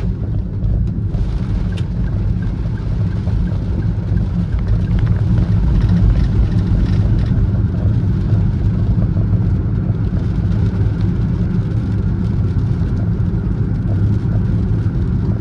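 Car driving steadily, heard from inside the cabin: a low, even rumble of engine and road noise.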